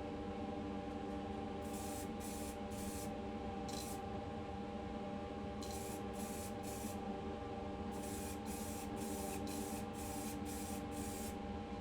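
Paint being sprayed onto a small die-cast car body in short hissing bursts, mostly in quick groups of two or three and more often near the end, over a steady motor hum.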